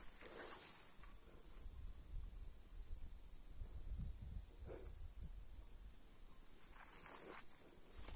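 Steady high-pitched insect chorus, crickets, over a low rumble, with a few soft footsteps in grass.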